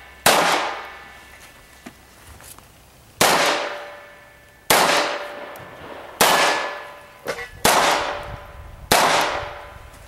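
Six pistol shots fired one at a time. The first is followed by a pause of about three seconds, and the rest come about every second and a half. Each shot fades out over a short ringing tail.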